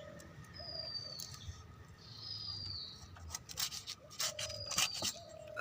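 A knife scraping and cutting fish, in a quick run of rasping strokes about halfway through. Over it, a bird gives short, high whistles that fall in pitch and repeat every couple of seconds.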